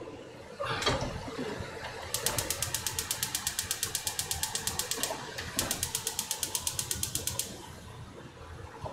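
Rapid, evenly spaced mechanical clicking, about six clicks a second, in two runs of about three and two seconds with a short break between, after a knock about a second in.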